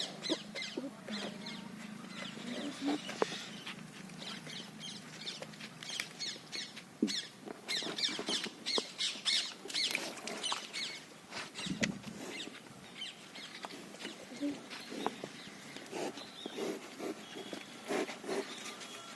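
Small birds chirping over and over with short, high-pitched calls, with a faint low hum during the first few seconds.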